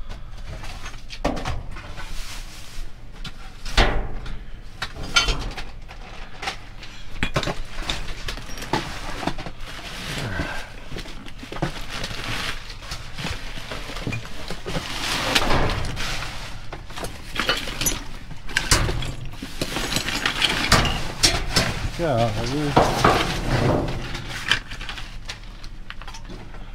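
Discarded goods being rummaged through in a dumpster: hard objects knocking, clattering and clinking against one another in irregular bursts as they are shifted and handled.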